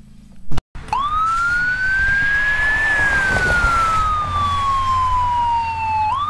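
A single loud knock about half a second in, then a police car siren wailing: it rises for about two seconds, falls slowly for about three, and starts rising again at the very end.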